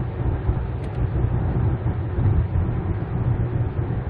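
Steady low rumble of road and engine noise inside the cabin of a diesel Hyundai Santa Fe DM cruising at highway speed.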